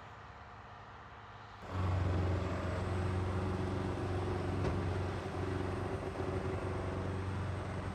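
A machine tool running with a steady low hum and several steady higher tones. It comes in abruptly, loud, about two seconds in, after a faint hum.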